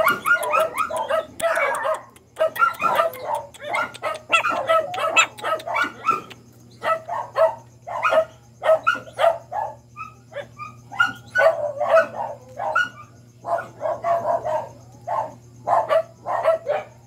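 Puppies yipping and barking in short, quick calls, again and again with brief pauses, over a steady low hum.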